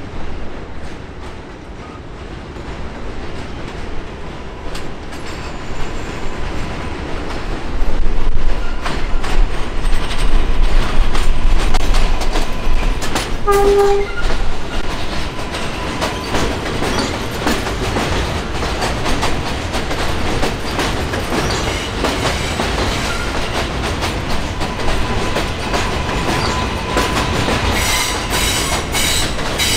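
New York City Subway L train running on an elevated steel structure. Its rumble grows as it approaches, then wheels clatter over the rail joints as it passes. There is a short horn blast about halfway through, and a high steady whine and some wheel squeal on the curve near the end.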